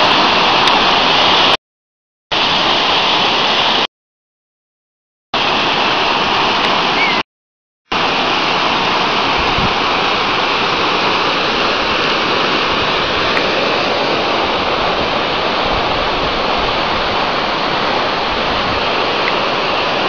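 Waterfall pouring over rocks into a pool: a loud, steady rush of water. The sound cuts out completely three times in the first eight seconds.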